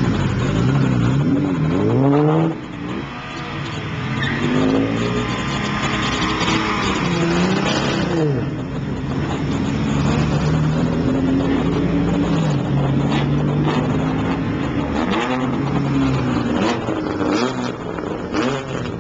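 Several classic Jaguar XK sports cars' straight-six engines running at low speed, with steady idling and a few revs rising and falling in pitch as the cars pass.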